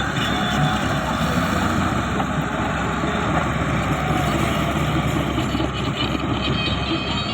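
Heavy diesel engine of a large crawler bulldozer running steadily.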